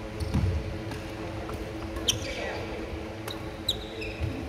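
Badminton play on a wooden indoor court: dull footfalls early on, then a few short sharp ticks from shuttlecock hits and shoe squeaks, over a steady hum in the hall.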